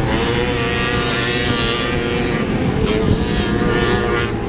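Several off-road race buggy engines running hard around a dirt short-course track, their pitches overlapping and rising and falling.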